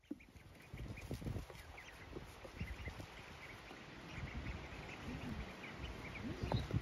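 Khaki Campbell ducklings peeping in many short, high chirps, over irregular low thumps and rumbles that are loudest near the end.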